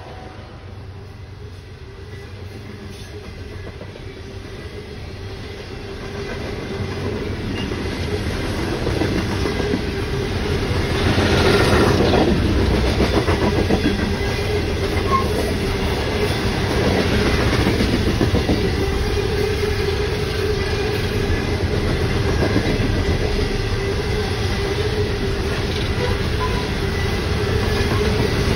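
Norfolk Southern coal train's freight cars rolling past close by: a steady rumble with wheels clattering over the rail joints. It grows louder over the first ten seconds or so, then holds steady.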